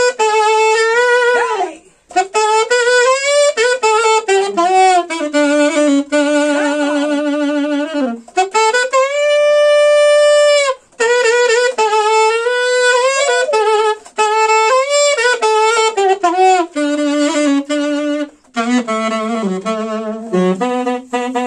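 A small saxophone section playing a reggae tune live in harmony, in phrases broken by short breaths, with one long held note about halfway through.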